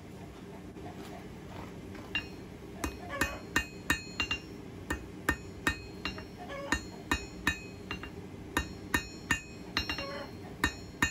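Blacksmith's hammer striking a red-hot spring-steel bar on an anvil, knocking the corners of a square taper down towards an octagon. After about two quieter seconds come sharp, ringing blows in quick runs of three to five, about three a second.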